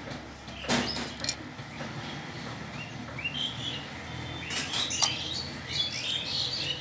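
Small birds chirping repeatedly, short high chirps coming in quick runs from a couple of seconds in. Small plastic toys click and clatter against each other in a plastic basket about a second in and again near five seconds.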